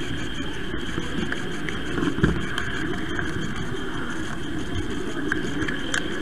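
Model train running on the track, heard from aboard: a steady rumble with a thin whine, light scattered clicks, and a louder knock about two seconds in.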